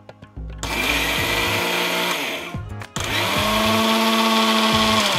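Electric mixer grinder running in two bursts of about two seconds each, grinding roasted grated coconut and spices dry, without water, in its steel jar.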